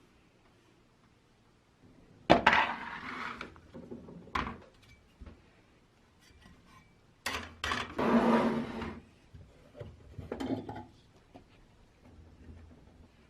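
Metal parts and tools being handled on a work surface: a few sharp knocks and clinks, each followed by a second or so of rattling and scraping, the longest burst about seven seconds in.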